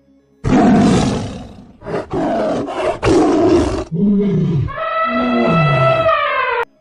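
Loud animal-like roars: two rough, noisy roars, then pitched growls that slide down in pitch, cut off suddenly near the end.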